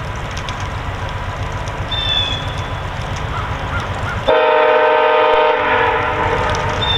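VIA Rail GE P42DC diesel locomotive approaching at low speed with a steady low rumble. A little over four seconds in it sounds its multi-chime air horn in one blast of just over a second.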